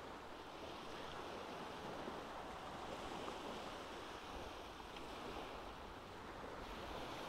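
Faint, steady hush of sea surf washing on the beach, with no separate sounds standing out.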